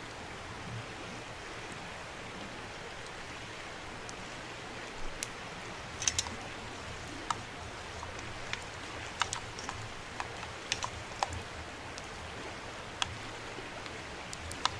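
Campfire cooking: a steel pot of rice and beans stirred on a grill over hot coals, giving sharp, irregular clicks and pops over a steady soft hiss.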